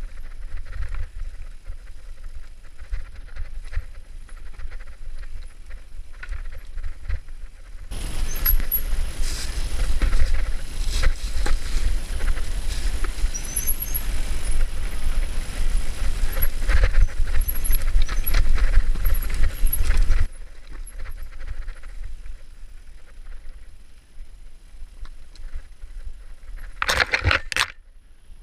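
Mountain bike rolling fast down a dirt and stone singletrail: tyres crunching over the ground with rattle and rumble from the bike, louder and rougher for about twelve seconds in the middle. A brief brake squeal comes near the end.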